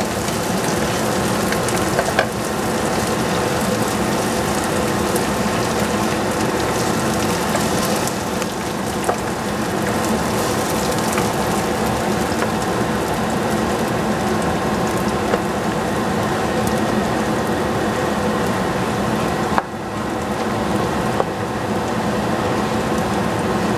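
Rice frying and crackling in a stainless steel saucepan while a wooden spatula stirs and scrapes it, left on the heat until a little bit burnt. A steady hum runs underneath, with a few small scrapes and knocks of the spatula.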